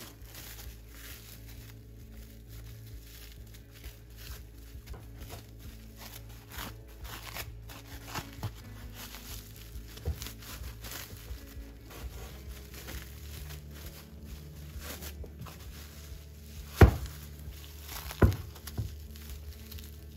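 Soft background music over kitchen handling noises: many small clicks and rustles, then two sharp knocks near the end, about a second and a half apart.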